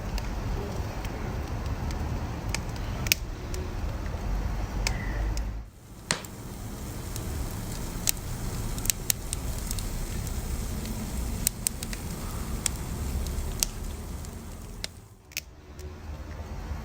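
Wood fire burning with a steady low rumble, broken by scattered sharp crackles and pops of the burning logs. The rumble drops away briefly twice, about six seconds in and again near the end.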